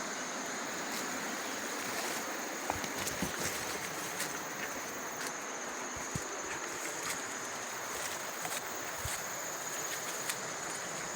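River water rushing steadily, with a thin, steady high drone of insects over it and a few scattered light knocks.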